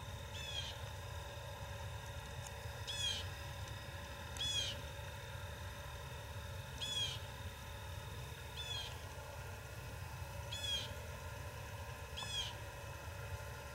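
A bird calling: a short, high chirping call repeated about seven times, one every one and a half to two seconds, over a low steady rumble.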